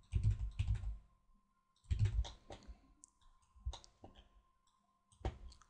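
Computer mouse and keyboard clicks in small clusters, with pauses between them.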